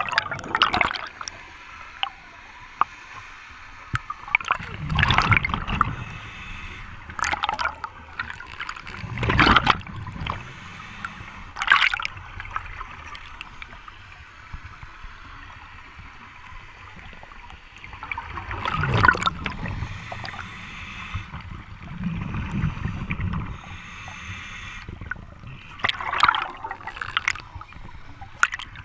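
Scuba diver breathing through a regulator underwater: about eight bursts of exhaled bubbles gurgling every few seconds, with a thin hiss of inhalation between some of them.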